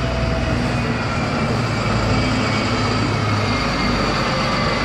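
Diesel engine of a London double-decker bus running steadily as the bus pulls away, with a faint high whine that rises slightly near the end.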